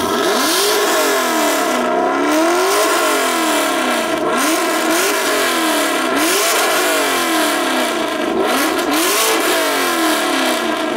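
A car engine revved hard over and over through a loud exhaust, its pitch climbing and dropping back about once a second, as it is free-revved to show off exhaust volume.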